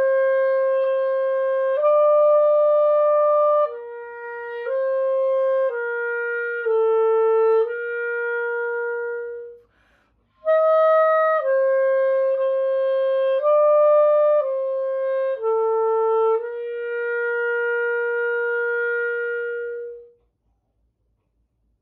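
Clarinet played solo at a medium-loud volume: a slow exercise melody of sustained notes in two phrases that step down to middle C and B, with a short breath between the phrases about ten seconds in. The last note is held for several seconds before it stops.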